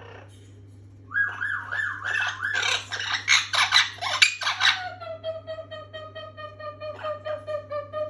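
Orange-winged Amazon parrot vocalising: about a second in, a whistle that wavers rapidly up and down, then a run of loud calls, then a long steady note held for about three seconds from about five seconds in.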